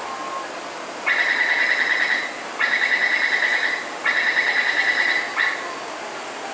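Taipei Metro door-closing warning: three pulsing, high buzzer tones of a little over a second each, then a short final blip, over steady station hum. It signals that the doors are about to close.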